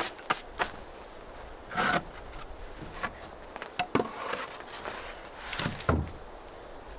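Wooden boards being handled: a handful of separate knocks and clacks as a board is picked up and moved, with a short rustle about two seconds in and a dull thud near the end as a board is set down.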